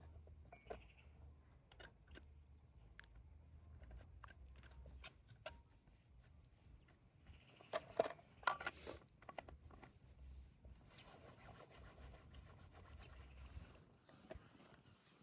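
Quiet handling sounds: scattered small clicks, with a brief run of rustling, scraping clicks about eight seconds in.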